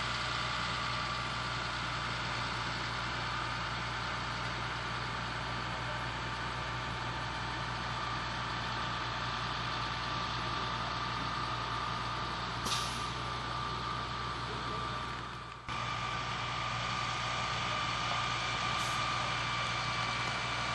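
Steady vehicle engine hum with road or wind hiss. A short high sound comes a little past halfway, and the sound cuts off and resumes abruptly about three-quarters of the way through.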